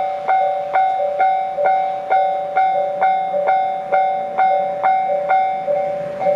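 Japanese railway level-crossing warning alarm ringing: a two-tone electronic clang repeating about two and a half times a second, the signal that a train is approaching and the barriers are coming down.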